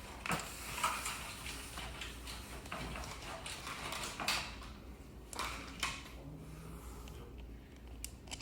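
Scattered clicks, light knocks and scraping as the scooter's wheel rim, hub motor and bolts are handled and lined up by hand.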